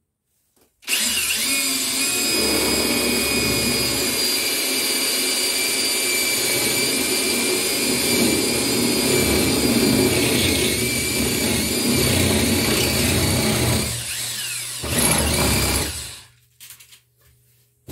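Cordless hammer drill boring a 14 mm hole into a tiled wall, running steadily with a high whine for about thirteen seconds. It eases off briefly near the end, then runs again for a short final stretch before stopping.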